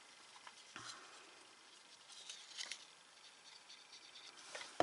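Faint rustling and small ticks of a paper box and a plastic glue bottle being handled while glue is dabbed onto small flaps, with a sharper click near the end.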